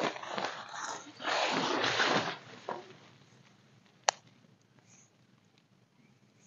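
Two hard, breathy blowing bursts, a person blowing on smouldering campfire embers, in the first two seconds. A single sharp click, like a stick snapping in the fire, about four seconds in.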